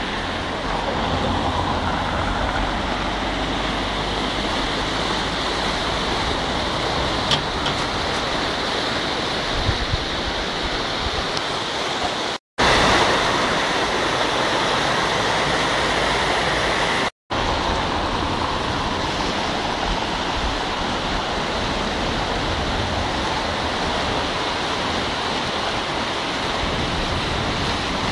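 High floodwater rushing and churning over a river weir: a steady, loud rush of water. The sound cuts out for an instant twice, about twelve and seventeen seconds in.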